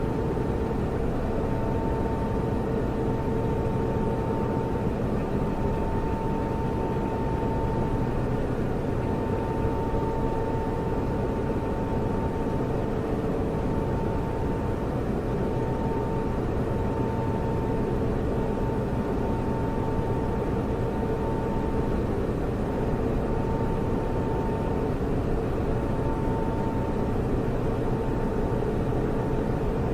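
Servers running, their cooling fans giving a steady rush of air with a constant whine over a low hum.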